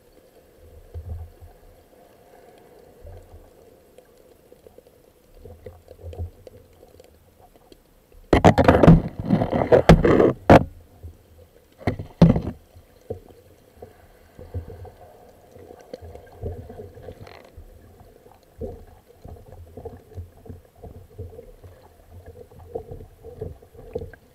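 Muffled underwater sound picked up by a camera hanging on a line: low bumps and water movement on and off, as the camera and its housing are jostled. About a third of the way in comes a loud stretch of rushing noise with sharp knocks lasting a couple of seconds, then a shorter burst soon after.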